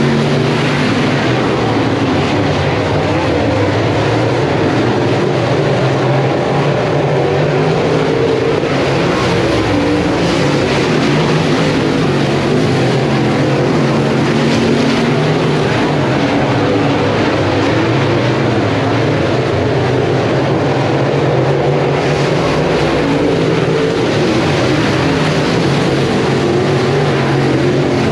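Dirt-track race cars' engines running on the clay oval, a loud, steady engine noise with no let-up.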